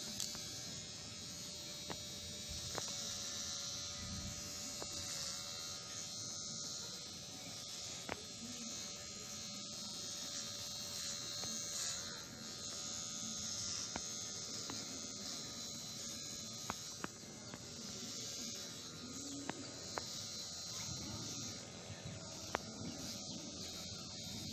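Kemei KM-2850 electric hair clipper running with a steady buzz while cutting hair with a 10 mm guard, with a few faint ticks.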